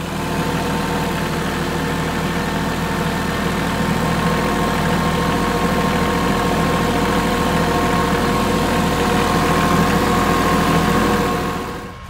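Tractor engine running at a steady speed, a constant drone with a low rumble, which drops away shortly before the end.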